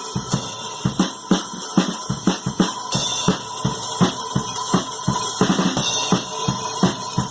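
Drum kit being played: a steady run of drum hits, about four a second, over ringing cymbals.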